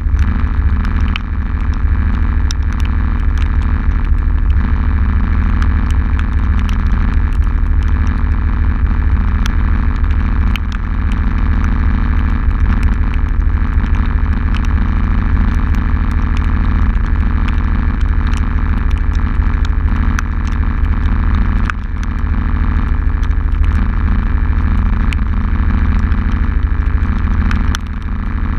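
ATV engine idling steadily, with many sharp ticks of heavy rain striking the camera mounted on the machine.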